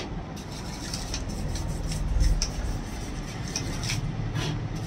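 Dust being cleaned out of a laptop's cooling fan: a low rumble that swells about two seconds in, with light rubbing and scattered small clicks.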